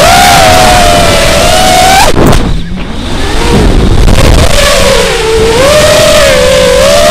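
Motor and propeller whine of an FPV model aircraft, picked up close by its onboard action camera, with wind rumbling on the microphone. The pitch wavers up and down, drops away briefly about two seconds in, then climbs back.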